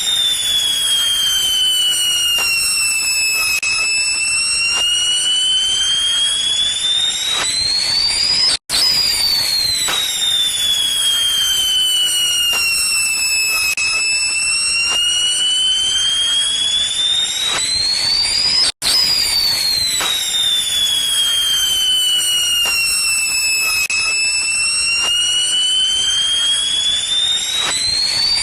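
Looped sound effect: a high whistling tone that slowly glides down and back up over about ten seconds above a crackling hiss. It repeats three times, with a brief cut between repeats.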